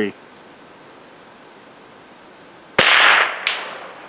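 A single shot from a CZ 455 .22 LR rifle, a sharp crack with a short decay, comes near the end, followed about two-thirds of a second later by a faint click. Under it runs a steady high buzz of insects.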